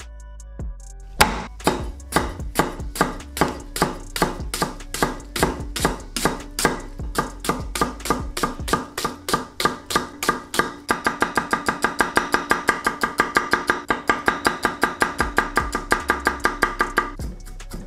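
Chef's knife chopping on a thick end-grain wooden board, each stroke a sharp knock on the wood: steady slicing of onion at about two to three strokes a second, then, after about ten seconds, a rapid run of garlic chopping at about six strokes a second that stops shortly before the end.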